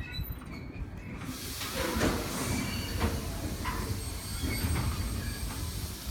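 Freight wagons rolling slowly past on the rails: a steady low rumble with several clanks and knocks from the wheels and couplings and brief high wheel squeals. A hiss comes in about a second in.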